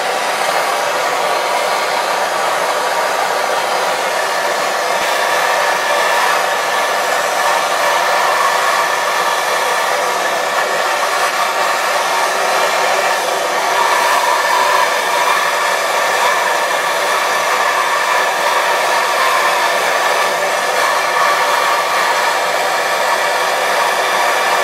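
Hand-held propane torch burning with a steady hiss, its flame heating a flux-coated copper tube joint for soldering.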